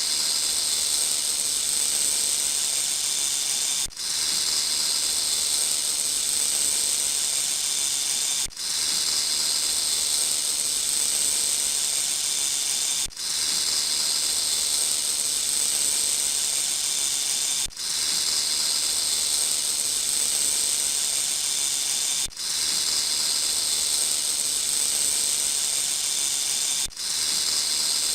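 Snake hissing in long, steady hisses, each broken off by a brief pause about every four and a half seconds.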